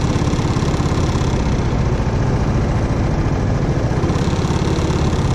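Go-kart engine idling steadily, heard close up from on board the kart.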